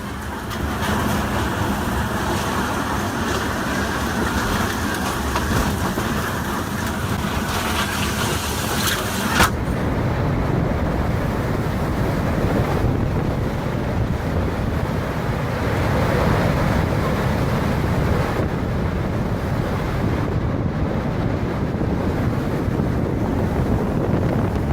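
Storm wind blowing hard across the microphone over a rush of waves and surf. The high hiss drops away abruptly about nine seconds in, leaving a lower, steady rush.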